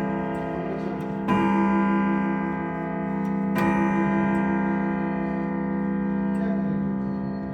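German grandfather clock striking: two strokes, about a second and three and a half seconds in, each ringing on with a rich, slowly fading tone, over the clock's ticking.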